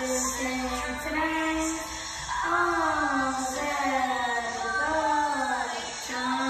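A boy singing a slow song in long held phrases, with brief breaks between phrases about two seconds in and again near the end.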